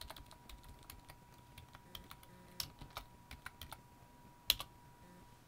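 Computer keyboard being typed on in short, irregular key clicks as a login password is entered, with a louder pair of clicks about four and a half seconds in.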